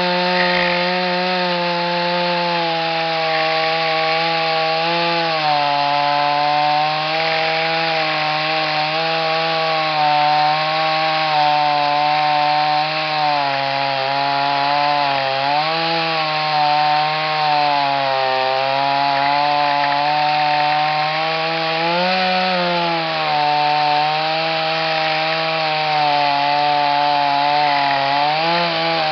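Chainsaw running near full throttle as it rips lengthwise through a log in a chainsaw mill. Its engine note sags under the load of the cut every few seconds and picks up again.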